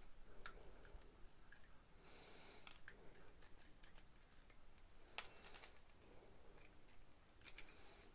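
Faint, scattered clicks and cracks as a Hatchimals Colleggtimals toy egg shell is pressed and broken open by hand, with pieces of shell snapping off. The sharpest crack comes about five seconds in.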